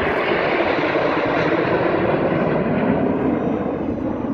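Jet engines of a formation of aerobatic jets flying overhead: a loud, steady rushing noise that eases slightly near the end.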